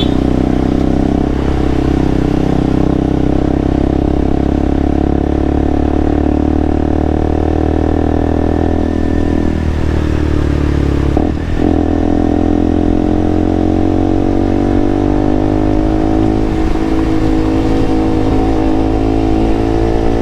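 KTM single-cylinder motorcycle engine running under way, with heavy wind rumble on the helmet lavalier mic. Its pitch holds fairly steady, breaks briefly about eleven seconds in, then climbs steadily as the bike accelerates.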